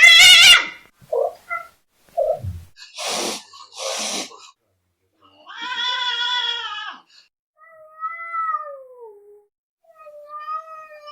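Angry cats yowling and caterwauling in drawn-out, wavering calls, the later ones sliding down in pitch. Two short hisses come around three and four seconds in.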